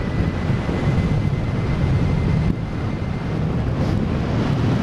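Airflow buffeting the microphone of a camera mounted on a hang glider in flight: a steady low rushing of wind.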